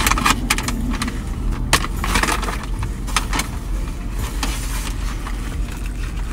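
Paper fast-food wrapper rustling and crinkling in short crackles as it is handled and opened, over a steady low hum.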